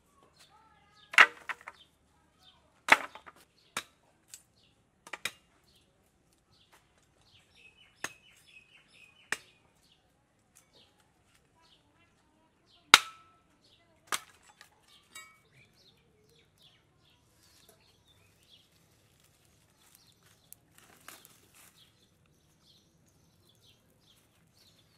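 Sharp knocks of wood on wood, about eight of them spread out, with the loudest near the start and about halfway, as planks and sticks are laid for a small fire. A brief rustling scrape comes a few seconds before the end.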